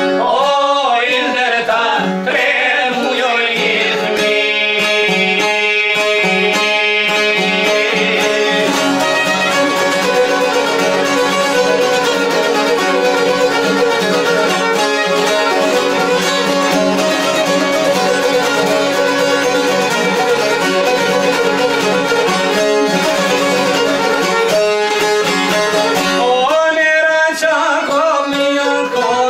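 Albanian folk ensemble playing an instrumental passage: a violin with plucked long-necked lutes, the çifteli among them, in a steady tune. A man's singing voice is heard briefly at the start and comes in again near the end.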